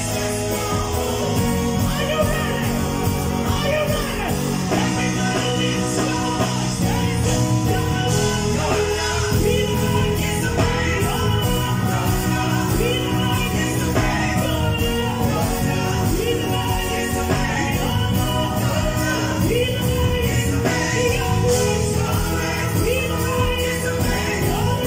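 Live gospel band playing with a voice singing over it: electric bass guitar, keyboard, electric guitar and drum kit, with the bass heard from close by on stage.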